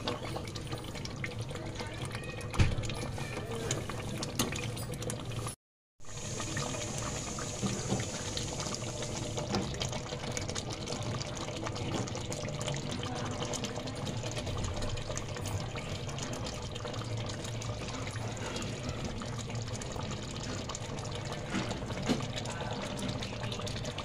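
Chicken curry gravy bubbling and sizzling in a pot, a steady crackling hiss with many small pops. There is a single sharp knock about two and a half seconds in, and the sound cuts out for a moment around six seconds in.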